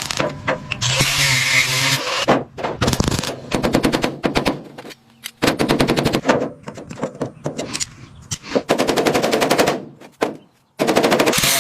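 Bursts of rapid, evenly spaced mechanical rattling that stop and start several times, with a steady hissing noise in the first two seconds and again near the end.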